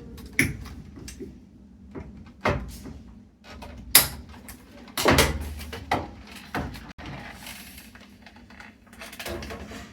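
Irregular clicks, knocks and rattles of plastic and sheet-metal parts being handled and pried inside a washing machine's control panel while the control board is worked loose. The loudest knock comes about four seconds in.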